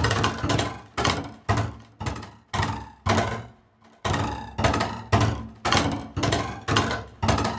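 Sampled solo double bass hits from the 8Dio CASE Strings library, played as a run of sharp, low-pitched percussive strikes about two a second. Each strike dies away quickly, with a ruler-like snap.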